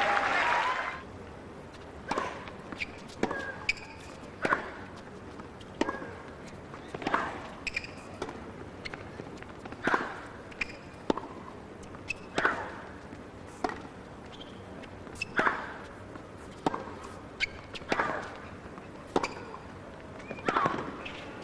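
Tennis rally on a hard court: the ball struck back and forth by rackets, with sharp hits and bounces roughly every second.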